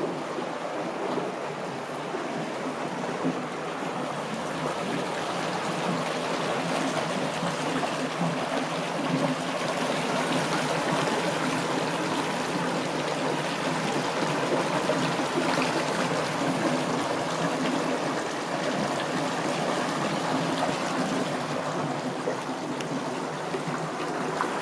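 Water flowing steadily along a village irrigation channel, a continuous rushing and trickling.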